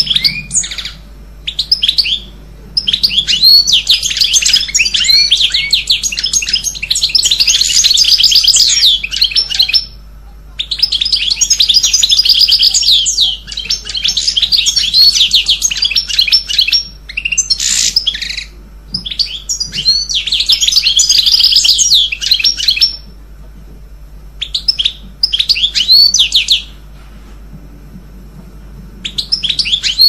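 Small songbird singing in long runs of rapid, high chirps, each run several seconds long, with short pauses between.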